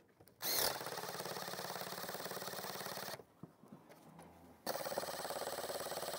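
Cordless oil impulse driver running in two bursts of about two and a half seconds each, with a short pause between. It has a fast, even pulsing note as it drives set screws into aluminum snow-bar clamps on the ribs of a standing-seam steel roof. The screws are only being snugged up lightly, at about 13 foot-pounds, rather than driven hard.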